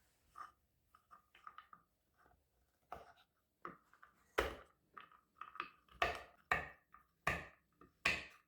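A run of irregular knocks and taps from objects being handled: light ringing ticks in the first few seconds, then louder, quicker knocks in the second half.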